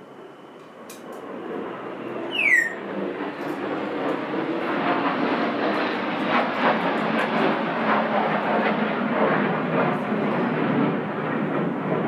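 A loud rushing noise that swells over the first few seconds and then holds steady. A bird's short falling whistle sounds about two and a half seconds in.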